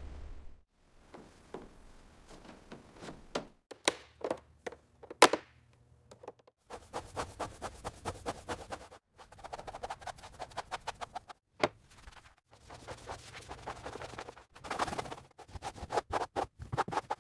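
Workshop tool sounds in a string of short clips: knocks, taps and clicks, with stretches of scraping and rapid scratching. The loudest is a sharp crack about five seconds in.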